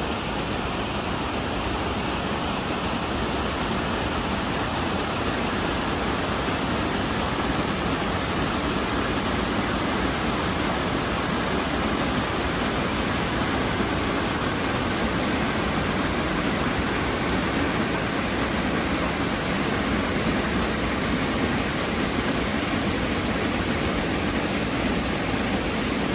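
Brandywine Falls, a waterfall, rushing in a steady, even roar of falling water.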